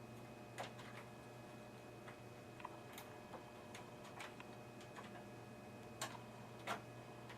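Irregular small plastic clicks and taps of a RAM module and its slot's locking clips being pressed and fiddled with, the clips not yet catching; the louder clicks come about half a second in and twice near the end.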